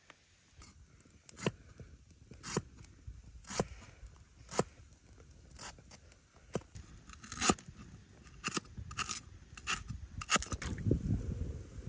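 A cleaver slicing through a crunchy fresh root onto a wooden chopping board: sharp chopping strikes about once a second, coming faster near the end. A low rumble comes in during the last second.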